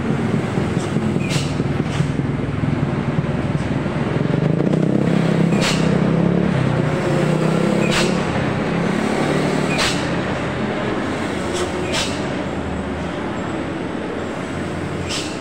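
Truck diesel engine running under load as a tarp-covered cargo truck passes close by, swelling to its loudest about five to eight seconds in and easing off after, over the steady drone of more trucks and motorbikes in the bend. Short sharp clicks come now and then.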